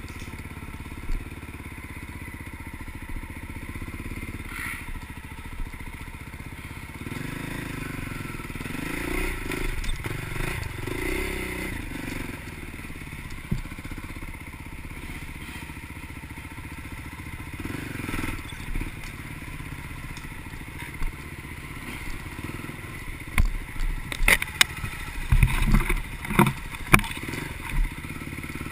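Off-road vehicle engine running steadily at low revs, with a cluster of sharp knocks and rattles near the end.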